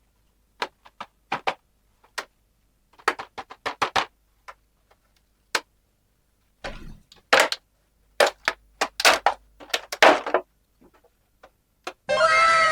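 Sharp clicks and taps of small plastic toy pieces being handled and set down, in scattered clusters. Near the end a sound effect of several falling tones begins.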